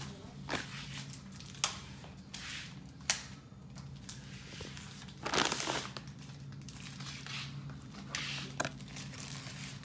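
Plastic wrapping and cardboard packaging crinkling and rustling as laptop accessories are unpacked. There are two sharp clicks in the first few seconds and a louder burst of crinkling about five seconds in.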